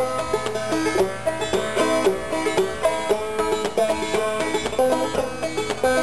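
A five-string banjo played clawhammer style: an old-time tune of quick plucked notes, several a second, running without a break.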